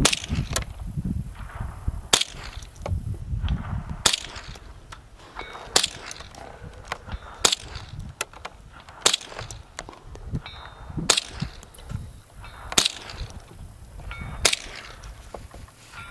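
Single shots from a 1951 J.C. Higgins Model 28 .22 semi-automatic rifle, about nine sharp reports at a steady pace of one every two seconds or so.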